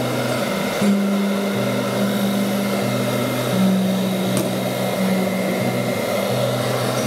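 Hand-held electric hair dryer blowing steadily, an even rush of air with a thin whine, under a low hum that shifts between two pitches every second or so.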